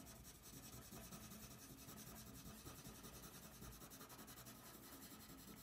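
Faint scratching of a Prismacolor Premier coloured pencil being stroked across drawing paper as colour is laid down.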